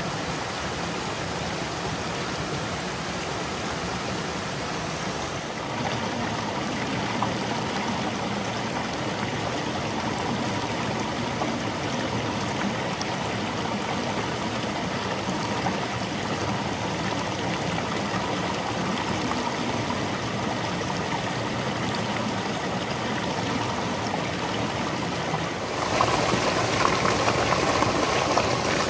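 Mountain stream water rushing and splashing over rocks in small cascades, a steady even rush that gets louder about five seconds in and again near the end.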